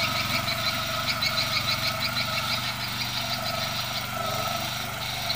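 Firman FTL 620 mini tiller's engine running steadily while its tines work the soil. A fast, high chirping repeats over it, pausing for about a second near the end.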